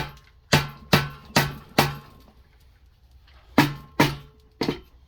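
Hammer blows on a small engine's metal casing, each ringing briefly: four steady taps, a pause of a couple of seconds, then about four more, as a stuck part is knocked loose.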